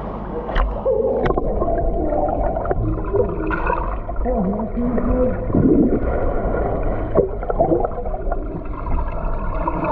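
Muffled swimming-pool sound as heard underwater: gurgling water and muffled, wavering voices, with a few sharp clicks.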